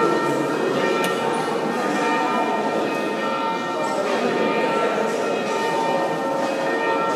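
Church bells ringing in a peal, many overlapping strikes with long ringing tones.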